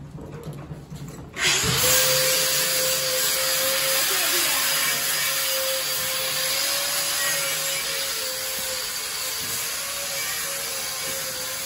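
A power tool starts about 1.5 s in and runs steadily, giving a strong hissing rush with a steady whine under it. A few light knocks come before it starts.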